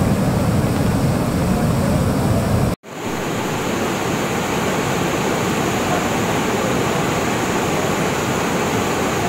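Steady rushing roar of muddy floodwater pouring over a dam spillway into the pool below. The sound cuts out abruptly for an instant about three seconds in, then the rush resumes with less low rumble.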